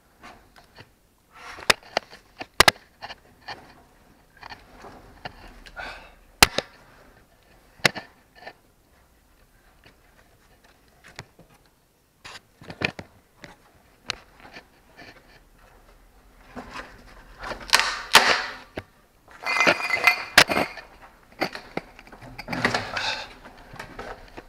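A person crawling through a narrow concrete tunnel over loose timber: scattered sharp knocks and clatters of wood, then louder, denser scraping and rustling of clothes and debris in the last few seconds.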